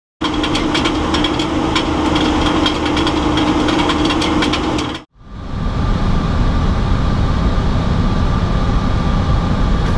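About five seconds of a steady hum scattered with sharp clicks, then an abrupt cut to the steady rushing noise of an Airbus A321 flight deck in flight on approach, with a thin steady whine above it.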